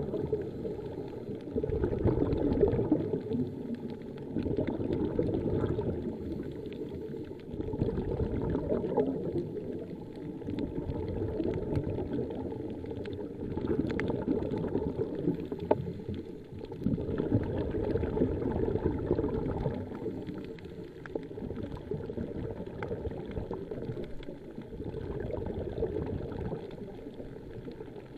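Underwater bubbling of a scuba diver's exhaled breath from the regulator. It swells and fades about every three to four seconds, with each exhalation.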